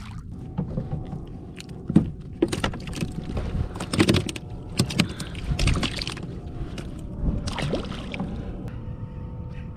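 Irregular knocks and clatter against a kayak, over a low rumble of wind and water on the hull. A faint steady hum comes in during the last few seconds.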